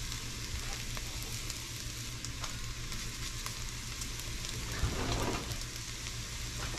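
Chopped carrots, celery and onions sizzling in rendered bacon fat in a Dutch oven: a steady frying hiss with small crackles, growing louder for a moment about five seconds in.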